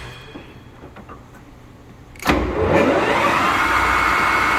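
Mori Seiki gap-bed engine lathe's spindle starts with a clunk about two seconds in and spins up in high gear to 1800 RPM: a rising gear whine from the headstock that levels off within about a second into a steady, high, even run.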